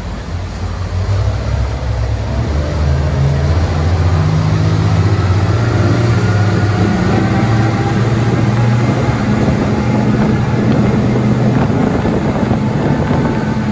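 The Jeanneau Marlin 895's Yamaha outboard engines running under way, their pitch rising slowly as the boat picks up speed and the sound growing louder over the first few seconds, with water rushing in the wake.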